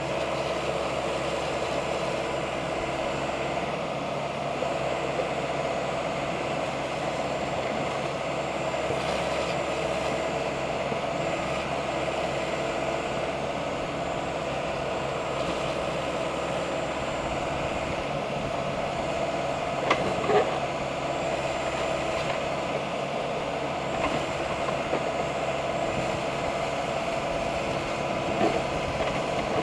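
Mahindra Arjun 605 tractor's diesel engine running steadily, driving a BULL backhoe that is digging a trench. A few short, sharp knocks come about two-thirds of the way through and again near the end.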